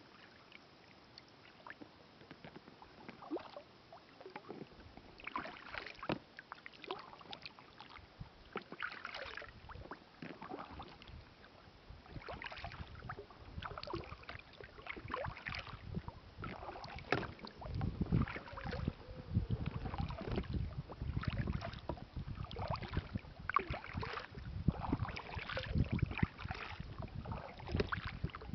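Kayak paddling: irregular splashes and drips of water as the paddle blades dip and lift beside the hull. In the later part the strokes come more often and a low rumble, like wind or knocking on the microphone, joins them.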